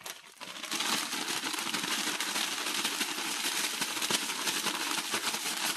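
Ziploc plastic bag holding a dry powdered spice mix shaken hard: a steady, rapid crinkling rattle of plastic, starting about half a second in.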